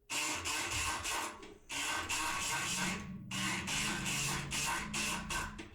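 Multipick Kronos electric pick gun buzzing as its pick needle rattles against the pins inside a lock cylinder. It runs in three stretches, stopping briefly about a second and a half in and again after about three seconds.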